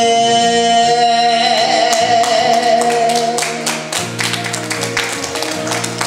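A man's voice holds the final note of an enka song with vibrato over a karaoke backing track. The note ends about three and a half seconds in, and the instrumental outro carries on with sharp percussive hits.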